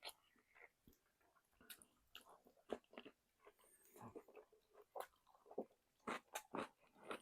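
Quiet, close-up chewing and biting of fried cheese chicken: irregular wet smacks and sharp crunchy clicks of a person eating.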